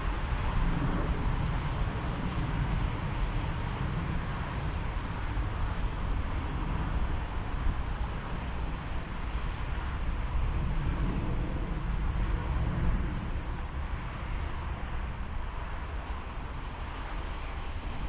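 Strong gusty wind rumbling and buffeting on the microphone, over a steady rush of distant jet engine noise from an airliner on final approach.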